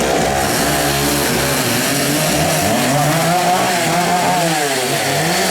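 Chainsaw running steadily loud, its engine pitch rising and falling over and over.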